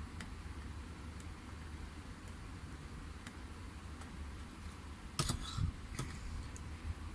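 Low steady hum with a few faint ticks, as in quiet hand soldering at a bench. About five seconds in comes a brief scraping clatter, then a single sharp click a moment later.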